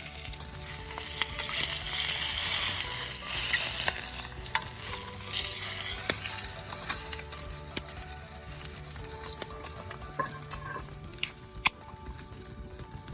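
Food sizzling and frying in a pan over a campfire, loudest about two to four seconds in, with scattered sharp pops and crackles.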